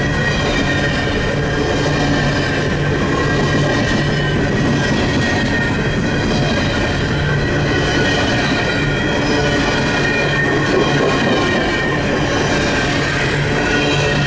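Empty coal cars of a freight train rolling past close by, steel wheels on the rail with a continuous rolling noise and a steady high squeal from the wheels.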